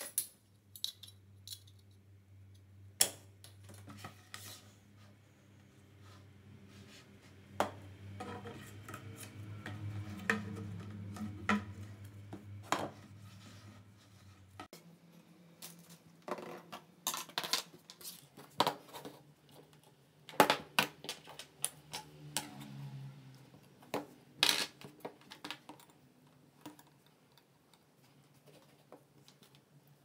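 Small metal and plastic parts (a metal shaft, timing pulleys, a motor and PVC end caps) being picked up and set down on a cutting mat: scattered clicks and light metal clatter, busiest in the middle and second half, over a faint low hum that shifts about halfway through.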